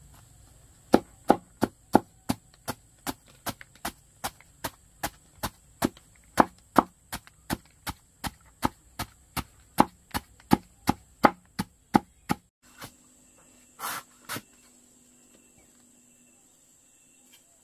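Chopping: about thirty sharp, evenly paced blows at roughly three a second. They stop abruptly after about eleven seconds, and two more scattered knocks follow.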